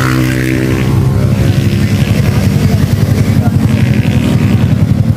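Motorcycle engine passing close by, its even tone fading about half a second in, followed by a steady low rumble of engines on the road.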